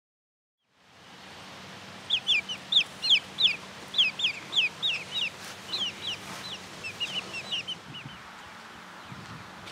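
Young chicks peeping: a rapid run of short, high cheeping calls, about three or four a second, from about two seconds in until about eight seconds.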